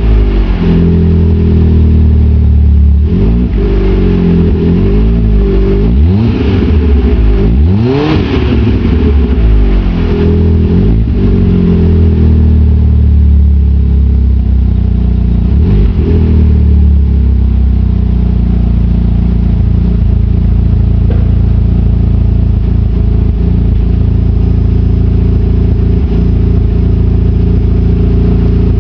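Fiat Grande Punto Sport's engine revved repeatedly, its pitch rising and falling with each blip of the throttle, then settling to a steady idle for the last ten seconds or so.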